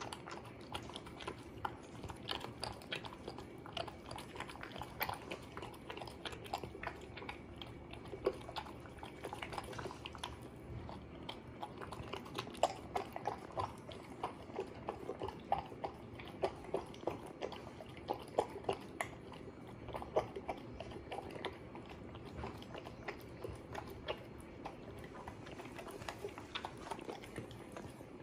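A small dog eating chicken and chayote dog food from a stainless steel bowl: wet chewing and biting, with many short crunches and clicks, thickest in the middle.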